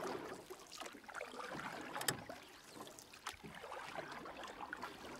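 Water lapping and slapping against the hull of a small boat on choppy water, with a scatter of small splashes and a couple of sharp knocks about two and three seconds in. No engine is running.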